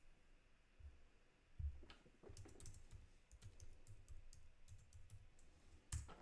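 Faint typing on a computer keyboard: a quick run of key clicks, with a louder keystroke near the end.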